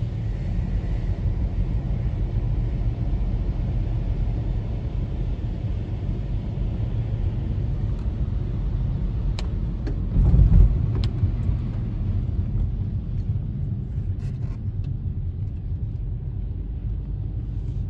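Road noise of a moving car heard from inside the cabin: a steady low rumble of tyres and engine, with a brief louder surge of rumble about ten seconds in.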